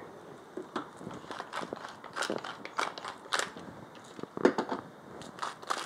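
Hand-twisted salt and pepper grinder grinding onto raw chicken: a run of small, irregular crunching clicks.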